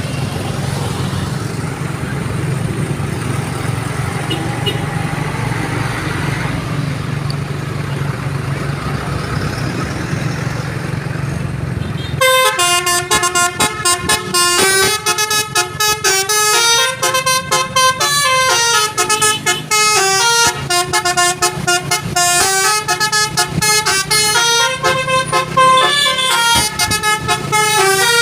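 A steady low hum for roughly the first twelve seconds. Then a Basuri telolet horn, a set of several horn trumpets sounded in quick sequence, plays a fast melody of short notes that step up and down in pitch with brief gaps between them.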